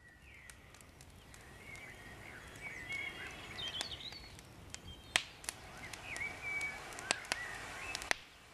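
Songbirds singing and calling over a faint outdoor hiss, with a few sharp clicks or snaps scattered through, the loudest about five seconds in.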